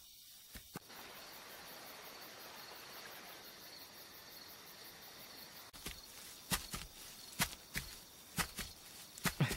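Night-time forest ambience of insects chirring steadily, likely crickets. From about six seconds in, a run of irregular sharp clicks and snaps sounds over it.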